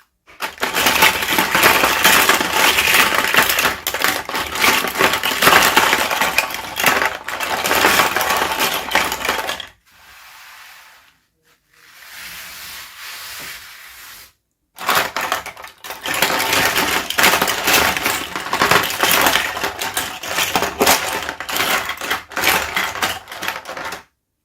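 Packaging being handled and opened: dense, fast crinkling and crackling, in two long loud spells with a quieter rustle between them.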